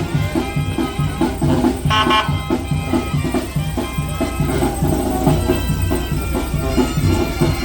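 Lively traditional-style music with a steady, evenly repeating drum beat under a pitched melody.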